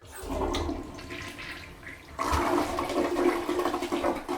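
Toilet flushing: a rush of water that starts abruptly and swells louder about two seconds in.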